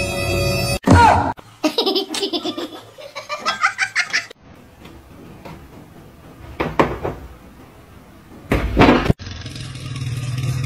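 A person laughing in short bursts, between a loud brief sound near the start and another near the end.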